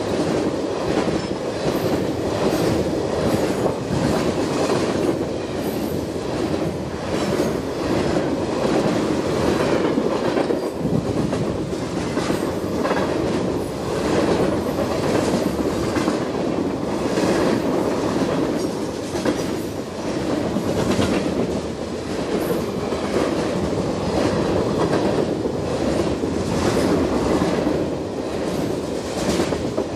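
Freight train cars rolling past, their steel wheels clacking in a steady run of knocks over the rail joints and the crossing diamond, over a continuous rumble.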